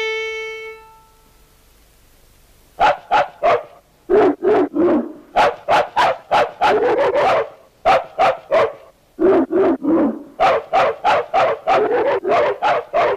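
A violin sounds a single A, bowed and dying away. Then a long run of rhythmic dog barks and yelps follows, rising and falling in pitch like a tune, as cartoon characters bark like dogs.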